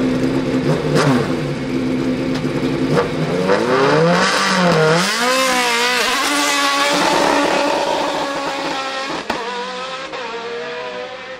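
Racing sports prototype's engine revving at the start line, the throttle blipped up and down several times, then held high as the car launches and pulls away, the sound fading toward the end.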